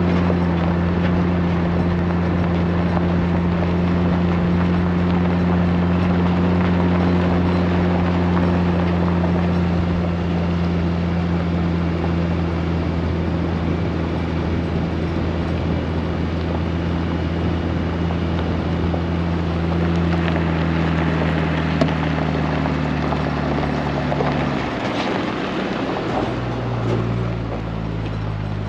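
Farm machinery engine running steadily at constant speed, with a dense mechanical rush over it. Near the end the engine note drops and settles lower.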